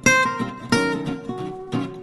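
Background music: acoustic guitar, plucked and strummed, with sharp note attacks.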